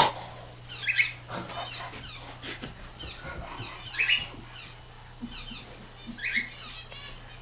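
A small pet animal chirping and squeaking: three louder short calls about a second, four seconds and six seconds in, with fainter quick chirps between them. A steady low electrical hum runs underneath.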